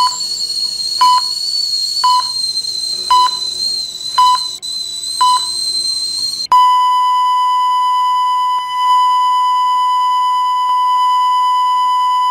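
Heart-monitor beeps, one short beep about every second over a steady high whine, then a single continuous flatline tone from about halfway through, the sign of the heart stopping.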